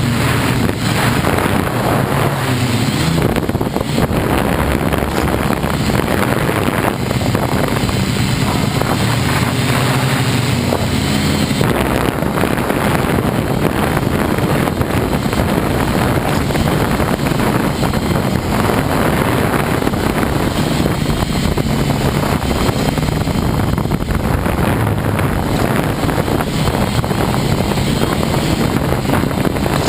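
Hexacopter's electric motors and propellers running through a flight, their low hum shifting up and down in pitch with the throttle, mixed with wind rushing over the microphone.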